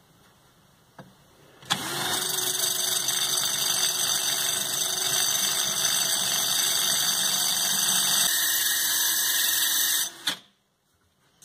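Cordless drill spinning a small diamond cutoff wheel that grinds a straight slot across a steel countersink tip. It starts suddenly about two seconds in with a steady motor whine and a hiss of cutting, dips slightly in pitch near the end, and stops abruptly.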